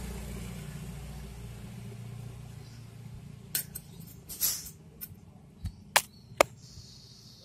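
A cat nosing and brushing against a phone held close at ground level, giving a run of sharp taps and knocks on the microphone in the second half. Under it is a low rumble that fades away over the first few seconds.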